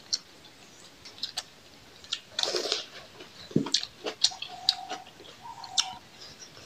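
Close-up eating sounds from a hand-eaten rice meal: scattered lip smacks and mouth clicks while chewing, with a short rustle about two and a half seconds in. Faint bird calls sound twice near the end.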